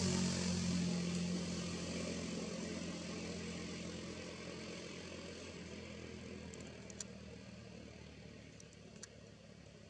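A motor engine with a steady low hum that fades away gradually, as if moving off into the distance. Two faint clicks come near the end.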